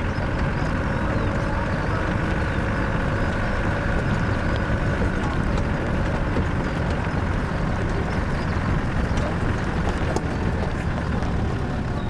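Off-road vehicle driving slowly along a rough unsealed lane, heard from inside the cabin: a steady low engine and road rumble with scattered small clicks and knocks from the bumpy track.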